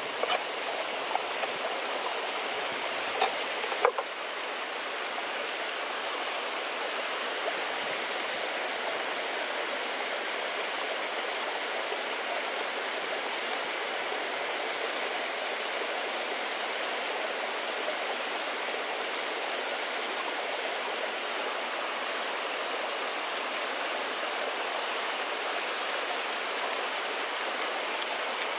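Stream water flowing steadily, with a few light clicks and taps in the first four seconds.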